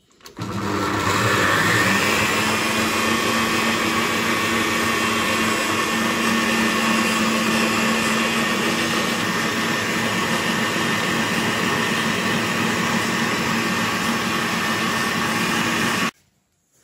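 Stand mixer running at high speed, its balloon whisk beating cold cream into whipped cream. The motor spins up with a brief rising whine in the first couple of seconds, then runs steadily and cuts off suddenly near the end.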